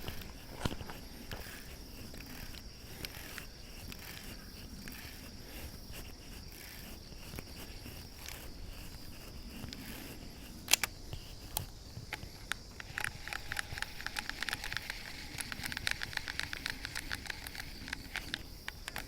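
Outdoor ambience with a steady high insect buzz and scattered small clicks. A single sharp click comes about eleven seconds in. From about a second later, a rapid run of ticking lasts around six seconds.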